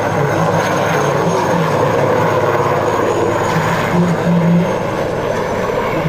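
Military transport helicopter flying low past: steady rotor and engine noise with a thin high turbine whine over it.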